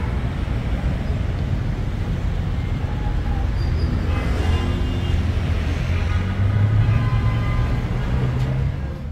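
Street traffic noise: a steady low rumble of vehicles, with one engine's pitched note swelling louder past the middle before the sound drops away near the end.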